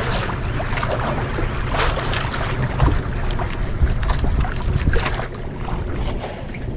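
A small fishing boat at sea: a steady low engine hum with wind and water noise, and scattered knocks and clatter on the deck.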